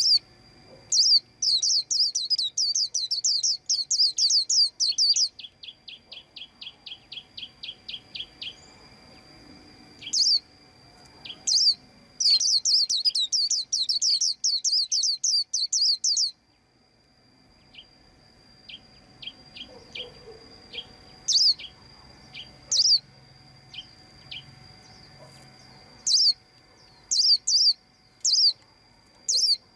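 White-eye chirping: rapid high twittering bursts of a few seconds each, with quieter spells of single chips and a run of evenly spaced notes in between.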